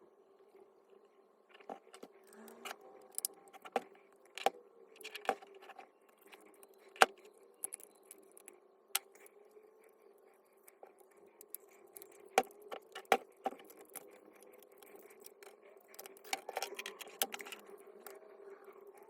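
Irregular clicks, knocks and light metallic clinks of tools and parts being handled while an electric demolition hammer is taken apart. This sits over a faint steady hum, with the sharpest knocks about seven seconds in and again around twelve to thirteen seconds.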